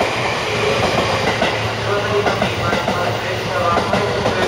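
Electric multiple-unit train rolling into the station at low speed. The wheels clack over rail joints and points, under a steady loud running noise.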